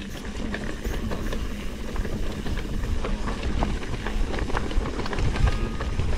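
Trek Fuel EX 8 full-suspension mountain bike riding down a dirt trail: tyres rolling over dirt and stones, a steady stream of small rattles and clicks from the chain and frame, and a low rumble of wind on the microphone.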